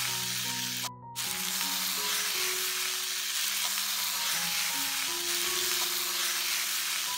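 Minced mutton sizzling as it fries in a cast-iron pan with onions, tomatoes and spices, stirred with a wooden spatula. The sizzle breaks off briefly about a second in.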